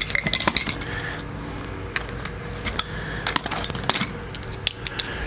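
Scattered sharp metallic clinks and clicks of hand tools being picked up and handled, bunched near the start and again around three to four seconds in.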